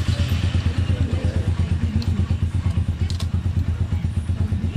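Single-cylinder motorcycle engine idling steadily, an even low pulse of about a dozen beats a second.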